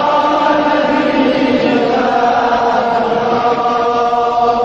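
Chanted singing of an Azerbaijani mourning elegy for Imam Hussain, the voices held on long, steady notes.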